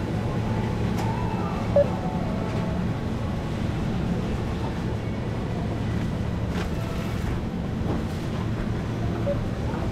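Supermarket ambience: a steady low hum, with a short beep about two seconds in and a fainter one near the end.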